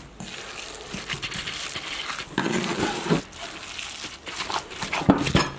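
A gloved hand kneading and squeezing a wet mix of minced meat, rice, chopped herbs and tomato in a stainless steel bowl: irregular squishing with the crinkle of the disposable glove.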